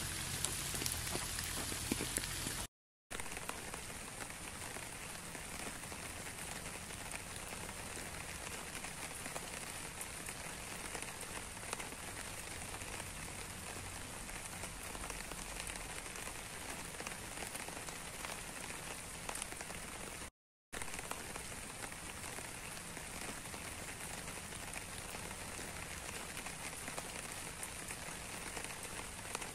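Steady rain with individual drops pattering, louder and with more low rumble for the first few seconds. The sound cuts out completely twice, briefly: about 3 seconds in and again about 20 seconds in, each time resuming as steady rain.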